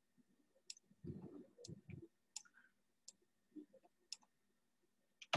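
Faint clicks of a computer mouse, about six of them spaced roughly a second apart, with a louder click near the end.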